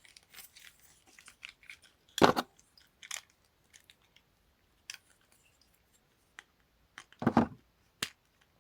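Plastic clicks and snaps of a Transformers action figure's parts being swung and locked into place during transformation, with two louder knocks about two seconds and about seven seconds in.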